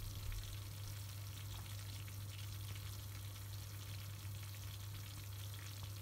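A pot of kuymak, cheese and cornmeal in butter, bubbling and sizzling quietly on lowered heat, with fine crackles over a steady low hum. Its butter is separating out in dots on top, the sign that it is cooked.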